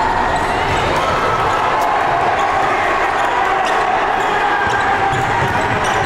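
A basketball dribbled on a hardwood gym court, over steady crowd noise and chatter.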